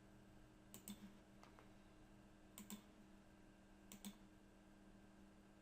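Faint computer mouse clicks, three quick pairs about a second or so apart, over a low steady hum.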